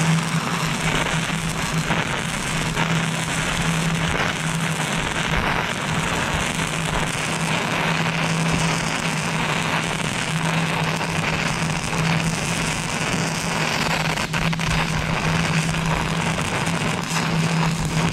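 Stick-welding arc of a 3.2 mm E6010 electrode running a root pass in a V-groove between mild steel plates: a steady, harsh crackle and sizzle. A steady low hum runs underneath.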